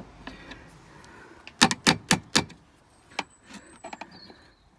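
A spanner working the bolt of an Audi A2 tailgate striker: four sharp knocks in quick succession, then a few lighter clicks.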